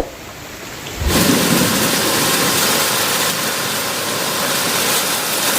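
Heavy rain falling on a roof: a loud, steady hiss that comes in suddenly about a second in.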